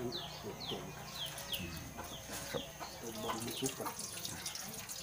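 Chickens: a run of short, high, falling peeps, about two to three a second through the first half, then a few low clucks a little after.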